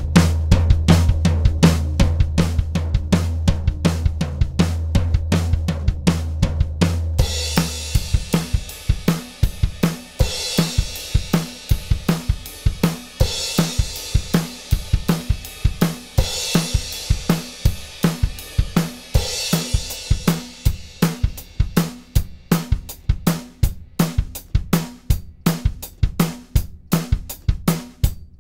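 Drum kit playing a steady groove through a Retro Powerstrip tube channel strip compressor: kick, snare and hi-hat, with a held low bass note for about the first seven seconds, then cymbal crashes about every three seconds until about two-thirds of the way through.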